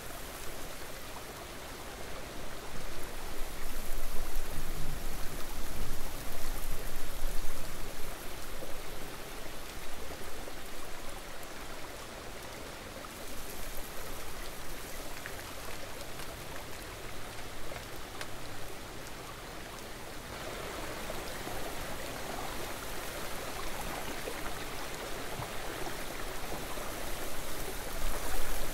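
Steady rush of flowing stream water, a continuous hiss-like noise that swells and eases in loudness.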